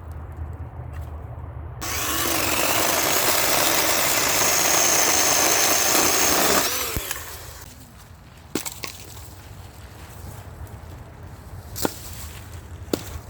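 Battery-powered chainsaw cutting through wood for about five seconds, with a high whine over the noise of the cut. A few sharp knocks follow.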